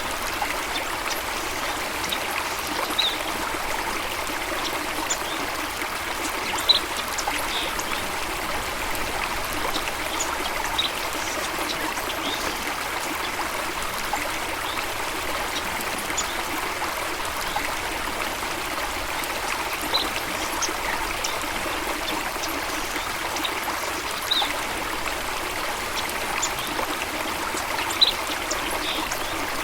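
Steady rushing and trickling of a stream of running water, with short high notes scattered over it every few seconds.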